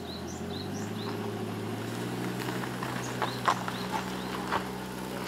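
Small kei van engine idling with a steady low hum, while birds chirp early on and a few light clicks sound in the middle.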